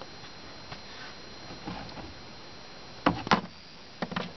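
Plastic toy ponies being handled on a wooden dollhouse floor: quiet room tone with a faint hum, then two sharp knocks about three seconds in and a few smaller clicks near the end.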